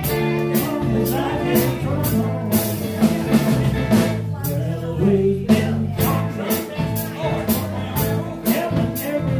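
Live blues band playing: electric guitars, electric bass and a drum kit keeping a steady beat, with an amplified harmonica.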